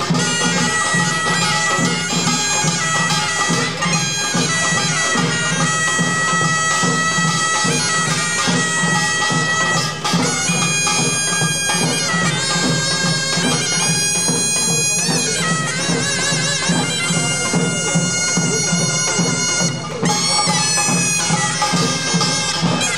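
Korean pungmul band music: a taepyeongso, the nasal double-reed shawm, plays a long held, wavering melody over the steady beat of janggu hourglass drums and the clanging of kkwaenggwari small gongs.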